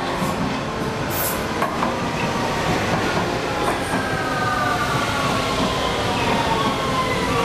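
Vienna U-Bahn metro train running into the station alongside the platform, its wheels rumbling on the rails. There is a brief high screech about a second in, and from about four seconds a whine that falls in pitch as the train slows.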